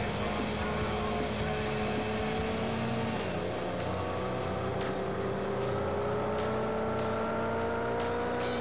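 Sport motorcycle engine pulling under acceleration, its pitch climbing steadily, dropping once at a gear change about three seconds in, then climbing again, with wind rush over the bike.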